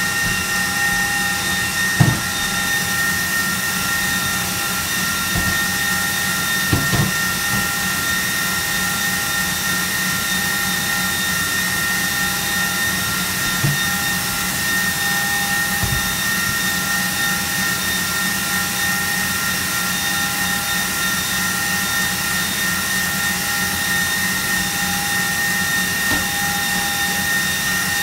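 Electric mixer running steadily at high speed, whipping the eggs and sugar for a sponge cake, with a constant motor whine. A couple of light knocks in the first seconds.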